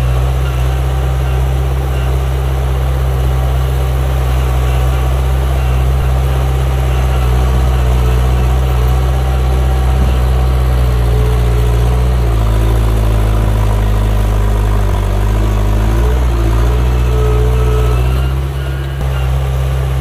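Heavy earthmoving machinery's diesel engine running steadily with a deep, even hum; its note shifts and wavers for several seconds past the middle, then settles again near the end.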